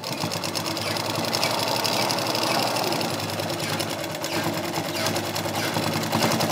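Black belt-driven domestic sewing machine running steadily, its needle stitching a seam through fabric in a fast, even clatter of strokes.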